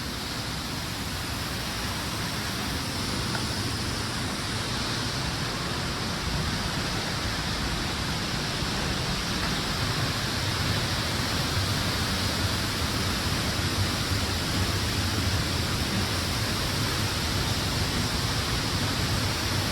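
A large waterfall's falling water, a steady, even rush with no breaks.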